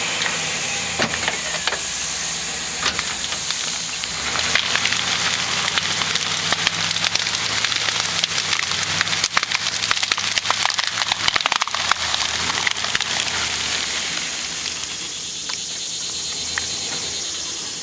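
A GMC Sierra pickup's engine runs steadily under load in four-wheel-drive low range. Over it comes a dense crackle of branches and brush snapping as they are dragged and broken, heaviest in the middle and easing off near the end.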